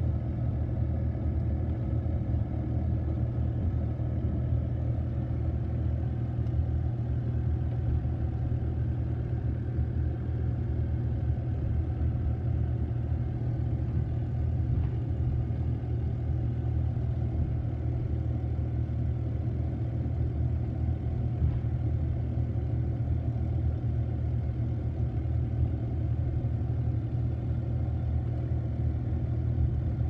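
Steady low rumble of a car driving, heard from inside the cabin, with no breaks or changes.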